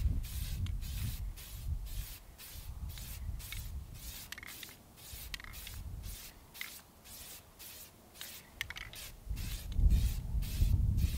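Aerosol spray-paint can sprayed in quick short bursts, about three hisses a second, misting paint onto a rifle. A low rumble swells up near the end.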